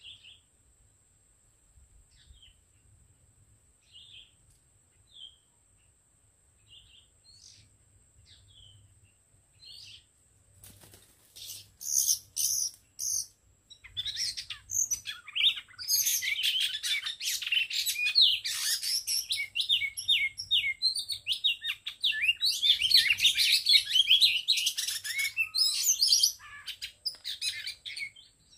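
Oriental magpie-robins calling: scattered short chirps at first, then from about halfway a loud, dense run of rapid chirping and song notes that tails off near the end. A faint steady high-pitched tone runs underneath.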